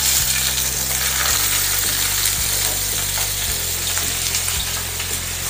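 Asian sea bass fillets sizzling steadily skin-side down in hot olive oil in a nonstick frying pan.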